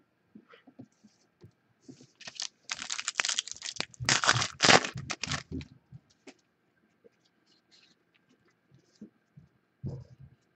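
Wrapper of a pack of football trading cards being torn open: a loud burst of crinkling and tearing about two seconds in, lasting around three and a half seconds, followed by faint clicks of the cards being handled.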